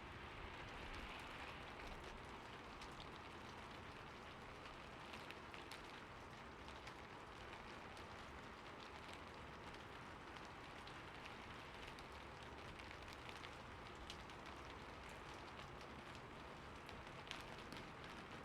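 Faint, steady rain falling, with many scattered individual drops ticking sharply on a surface close by.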